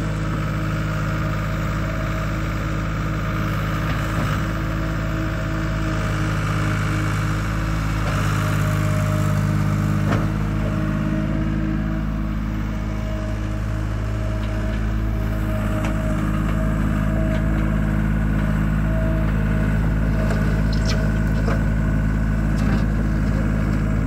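John Deere 240 skid steer's three-cylinder diesel engine running at a steady throttle while the machine works, with a few light knocks from the machine about ten seconds in and again near the end.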